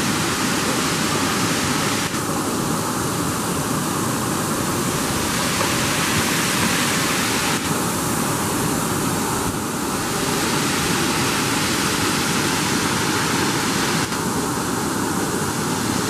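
Waterfall water pouring onto rock: a steady, loud rushing noise with no let-up. Its tone changes abruptly a few times.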